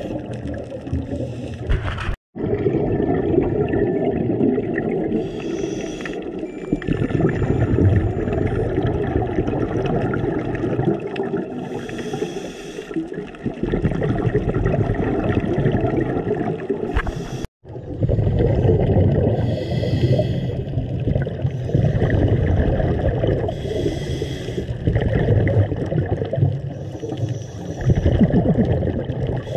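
Underwater sound of scuba diving: a dense muffled water rumble, with the gurgling hiss of exhaled regulator bubbles every few seconds. The sound cuts out completely for a moment twice.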